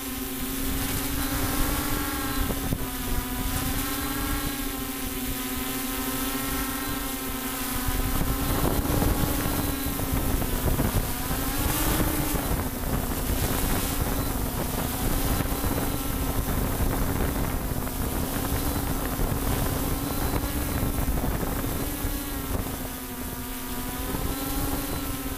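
Multicopter's electric motors and propellers humming steadily in flight, heard from the copter's own camera, the pitch wavering slightly as the rotors adjust. Wind buffets the microphone, more strongly from about a third of the way in.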